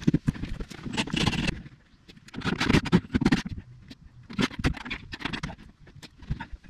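Bursts of rough scraping and knocking as a wooden panel is worked loose and cut free by hand, coming in uneven spells with short pauses between them.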